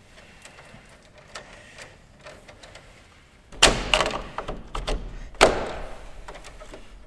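Handling noise of wires being worked into the circuit breaker terminals of a metal breaker panel: a few light clicks, then two sharp knocks about three and a half and five and a half seconds in, each with a short rattle.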